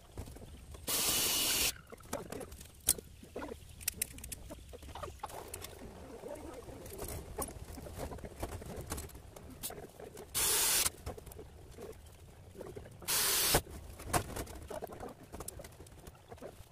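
A cordless drill driving screws into the cage's metal roof frame in three short bursts, about a second in, about ten seconds in and about thirteen seconds in, with clicks and knocks of metal and wire mesh being handled between them.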